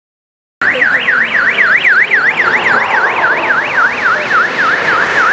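Electronic siren in a fast yelp, its pitch sweeping up and down about three to four times a second, the sweeps quickening slightly near the end. It starts abruptly about half a second in, after a silent gap.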